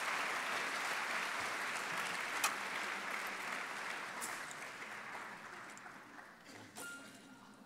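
Audience applause, dying away over the last few seconds, with a few small sharp clicks in it.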